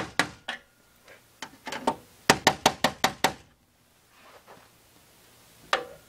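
Screwdriver blade knocking against a serrated zinc die-cast conduit lock nut, driving it the last quarter turn past hand tight. A few sharp knocks come first, then a quick run of about eight knocks starting a little over two seconds in.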